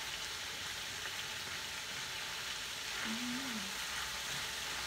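Shrimp sizzling steadily in hot oil in a grill pan over a gas burner while they are turned over with silicone tongs.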